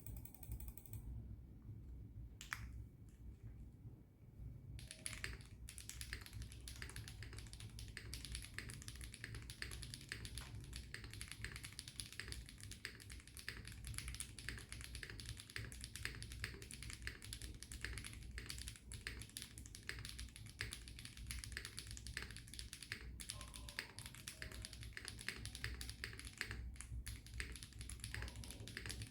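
Typing on a gasket-mounted Rule60 v3 mechanical keyboard with HMX Ziwei switches, a polycarbonate plate, plate foam and GMK keycaps. There is a single keystroke first, then from about five seconds in steady, fast typing with a couple of brief pauses near the end.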